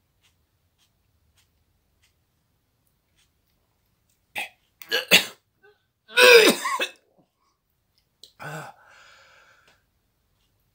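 A man coughing and clearing his throat in several short fits, starting about four seconds in, the loudest about six seconds in with a falling voiced note. It is a reaction to the burn of a Carolina Reaper pepper he has just eaten.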